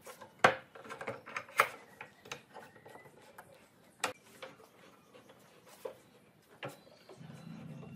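Metal pipe clamps clicking and knocking as they are slid along the pipe, set against the edge of a wooden panel and tightened by hand, with scattered sharp clicks, the loudest about half a second and 1.6 seconds in.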